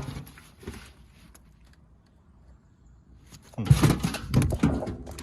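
Knocks and clatter of objects being handled and moved around, starting about three and a half seconds in after a quiet stretch.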